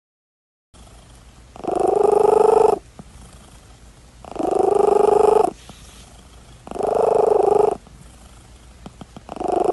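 Orange tabby cat purring while dozing, the purr swelling loud four times, about every two and a half seconds with its breathing, and softer in between.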